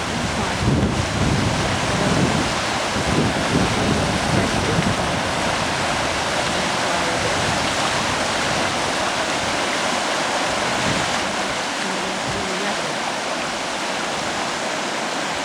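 Flooded river water rushing through rapids: a loud, steady roar.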